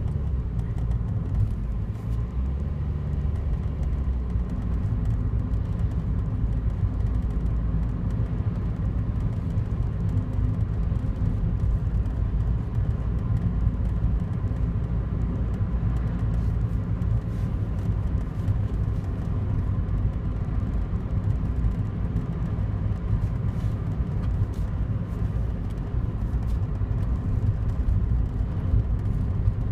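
Daihatsu Wake's 660 cc three-cylinder engine running steadily with a low rumble, with faint irregular ticks over it. This is the car that develops an unexplained abnormal noise every morning.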